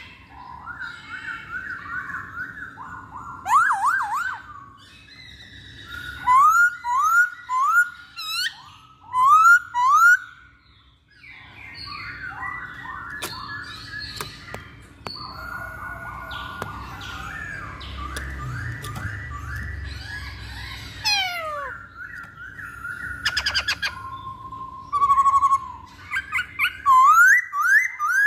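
Black-throated laughingthrush (Poksay Hongkong) singing: loud phrases of clear whistled notes, each rising in pitch and repeated several times in a row, mixed with quicker chattering runs and short pauses between phrases.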